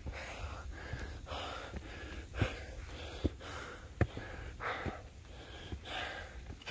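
A hiker breathing hard while climbing trail steps, about one heavy breath a second, with sharp footfalls and scuffs on the steps between them.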